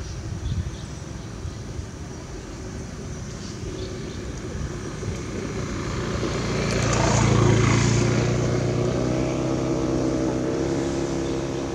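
A motor vehicle's engine nearby, growing louder to a peak about seven seconds in as it passes, then running on steadily.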